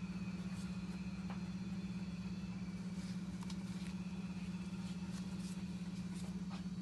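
Steady low hum with a few faint, scattered clicks of a knife cutting through a head of cauliflower.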